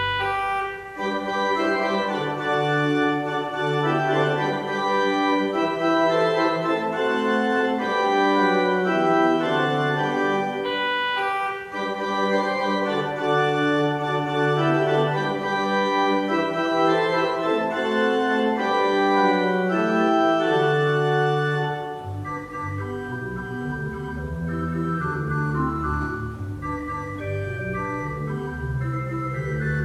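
Organ music: sustained chords with a moving melody line. About 22 seconds in it turns quieter, with deep bass notes underneath.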